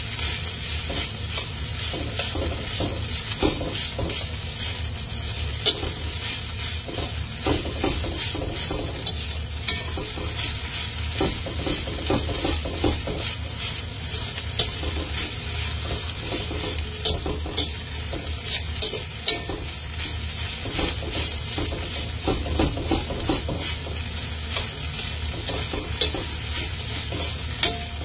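Egg fried rice sizzling in hot oil in a steel wok, with a spatula scraping and tapping against the pan in quick, irregular strokes as the rice is stirred.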